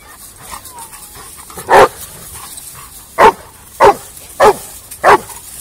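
A dog barking in play among several romping dogs: five loud single barks, the first about two seconds in, then four more, each about two-thirds of a second apart, from about three seconds in.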